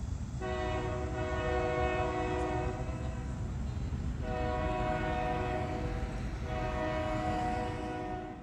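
Diesel locomotive's multi-chime air horn sounding a chord of several notes in three long blasts, the last following the second after only a brief break, over the low rumble of the train.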